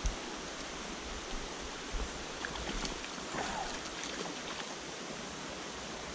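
Small creek water running over rocks, a steady rush, with a few light splashes in the middle as a hooked brown trout thrashes at the surface.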